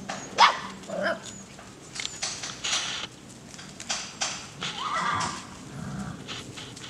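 Puppies yelping and squealing as they play-fight with an adult dog, in several short, sharp cries. The loudest comes about half a second in, and a longer whine rising and falling in pitch comes about five seconds in.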